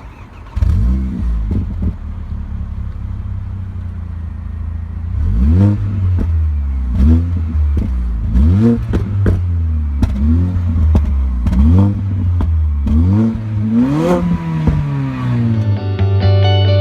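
Mercedes-Benz CLA45 AMG's turbocharged 2.0-litre four-cylinder engine being revved in a series of quick blips over idle, each rising and falling in pitch, about one every second and a half, with one longer, higher rev near the end.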